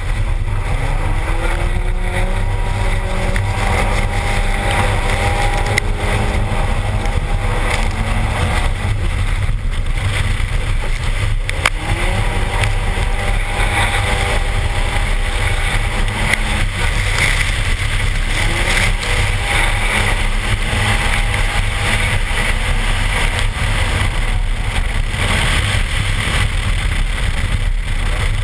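Turbocharged Toyota 3S-GTE inline-four in a Rav4 under hard acceleration, its pitch climbing several times as it pulls through the revs. Heavy wind buffeting on an outside-mounted microphone and the hiss of tyres throwing water and slush run under it.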